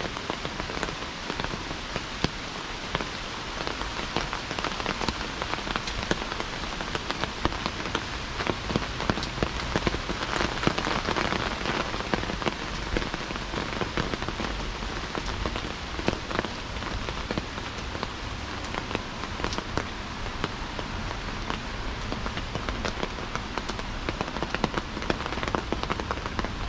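Heavy rain falling steadily, with many sharp raindrop hits close by.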